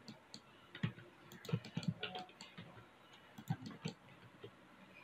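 Faint, irregular clicks of a computer mouse, about five of them, some in quick pairs.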